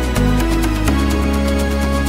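Background music: sustained chords over a low bass line that moves to new notes twice, with a steady ticking beat.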